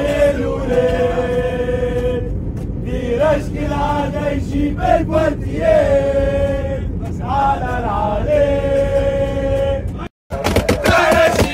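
Espérance de Tunis football fans chanting in unison with long held notes, over the steady low rumble of an airliner cabin. About ten seconds in it cuts off abruptly, and after a moment's silence a louder chant with rhythmic beats begins.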